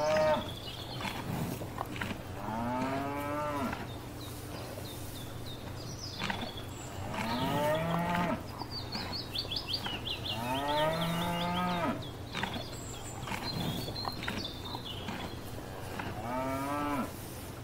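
Cows mooing: about four long moos a few seconds apart, each rising and then falling in pitch, over a steady low hum.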